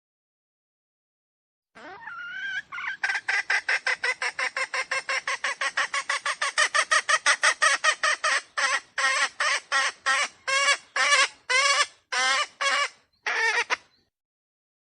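Red junglefowl (wild chicken) giving a long run of harsh, rapid calls, about five or six a second, starting about two seconds in, then slowing into separate notes before stopping near the end.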